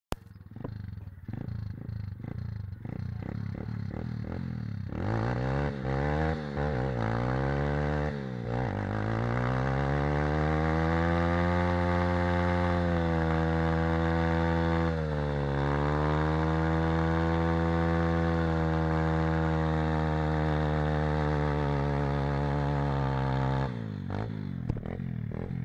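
Pit bike engine idling, then revved up and down a few times about five seconds in and held at high revs for some fifteen seconds while the rear tyre spins in a smoky burnout, with a short dip in revs about halfway through. The engine drops back to idle near the end.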